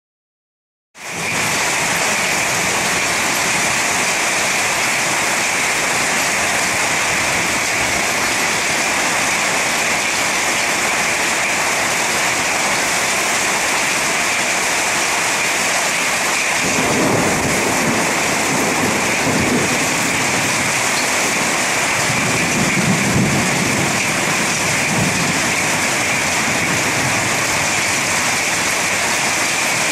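Heavy rain pouring down steadily in a violent thunderstorm, cutting in abruptly about a second in. A low rumble joins the downpour a little past halfway and lasts several seconds.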